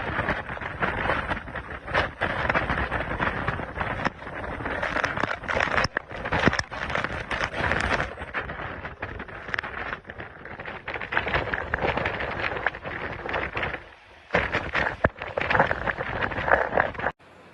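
Hurricane wind gusting over the microphone, a loud rushing noise that surges and eases over and over, then cuts off suddenly near the end.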